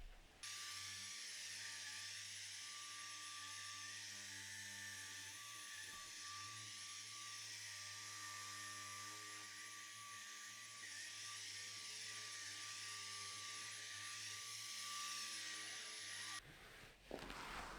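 Vacuum cleaner switched on, running steadily with a high whine and hiss, then switched off suddenly near the end.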